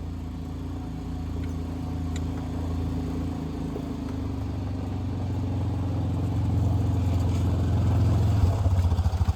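A vehicle engine idling steadily, growing louder through the stretch, with a faster throbbing setting in near the end.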